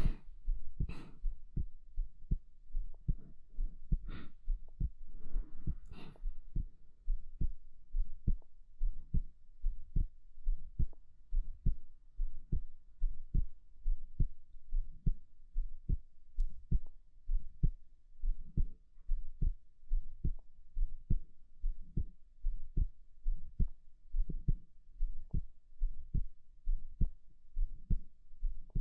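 Human heartbeat picked up close on the microphone: a steady, even rhythm of low, soft double thumps. A few brief hissy sounds fall in the first several seconds.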